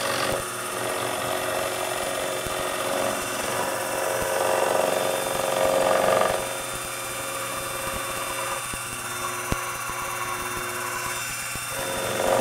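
Sherline vertical mill running steadily while a radius-corner end mill plunge-cuts the webs of a vise, the cutting noise growing louder about four to six seconds in and again near the end. A single short click a little after halfway.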